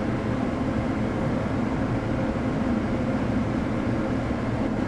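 Steady drone of a commercial kitchen's exhaust hood fan running over the griddle, with a faint steady hum in it.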